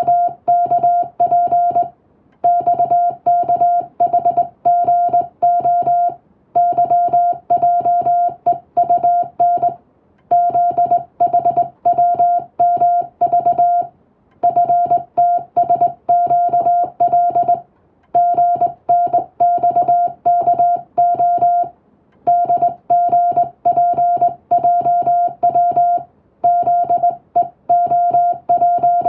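Morse code (CW) sent as a single steady tone of about 700 Hz, keyed in rapid dots and dashes of English-text code. It comes in runs of about four seconds with short breaks between them, like the word groups of a telegram practice text.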